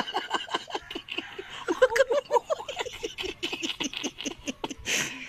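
A baby laughing in quick, repeated, high-pitched bursts of giggles.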